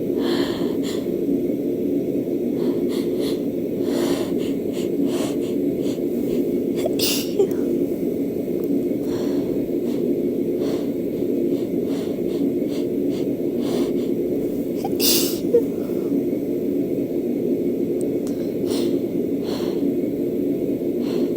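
A woman's induced sneezing: repeated hitching, catching breaths as false starts, with sharp sneeze bursts about seven and fifteen seconds in, the second the loudest. A steady low hum runs underneath.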